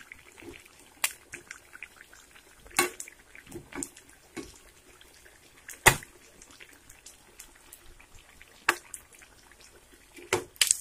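Egg bajjis deep-frying in hot oil in a steel kadai: a low sizzle with scattered pops and crackles. A few sharp clinks come from a metal slotted spoon touching the pan, the loudest about six seconds in.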